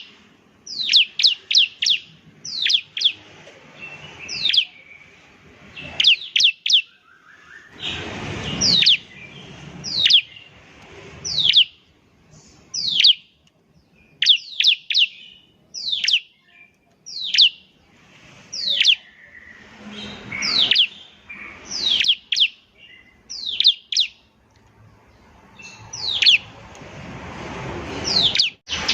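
Bar-winged prinia (ciblek) calling: sharp, high, downward-sweeping notes, singly or in quick runs of two to four, with short pauses between. Several times there is a burst of rustling noise under the calls.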